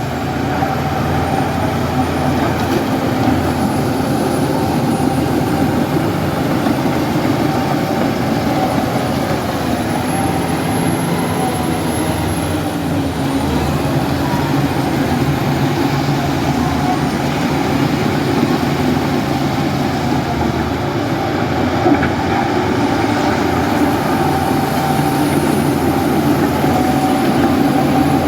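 Bulldozer diesel engine running steadily, with a thin, wavering high whine above it. One short knock about two-thirds of the way through.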